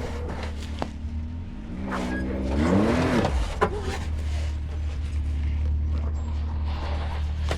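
Off-road vehicle's engine running with a steady low rumble, revving up in pitch about two seconds in and dropping back, with a couple of sharp knocks.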